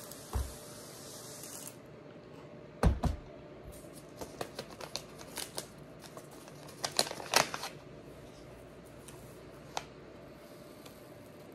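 Pump pressure sprayer hissing as it mists a paper towel, cutting off about two seconds in. A thump follows, then a run of crinkles and clicks from a paper seed packet being handled.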